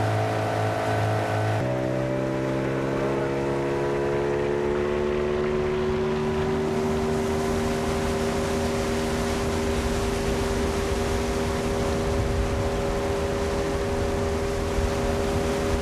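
Outboard motor on an inflatable boat running under way, a steady drone over the rush of water. A little under two seconds in the engine tone changes, then rises slightly for a few seconds before holding steady.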